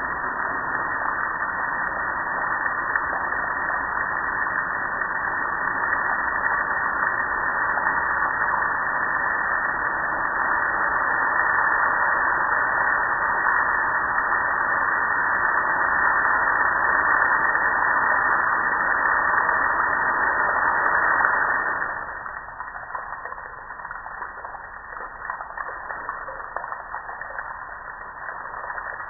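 Garden-hose spray nozzle jetting water onto a metal gas grill: a steady, loud rush of spraying and splashing water. About 22 seconds in it drops off sharply to quieter splashing, with water running and dripping off the grill.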